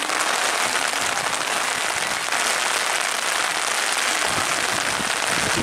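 Heavy rain falling steadily, an even hiss of drops with no break.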